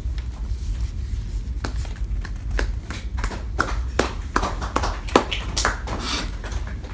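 Sheets of paper being leafed through and shuffled on a table: irregular crisp rustles and snaps, sparse at first and thicker in the second half.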